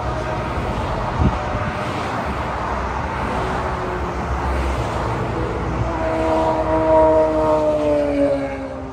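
Highway traffic passing close by: a steady rush of tyres and engines from cars and a truck. Near the end, as vehicles go by and move off, their engine tones slide down in pitch. There is a single short knock about a second in.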